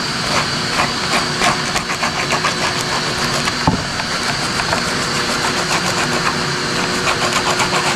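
Shop vacuum running steadily, overlaid by quick, regular rasping strokes of a hand sanding pad with 40-grit paper scrubbing the rough edges of cured fiberglass. One sharp knock about halfway through.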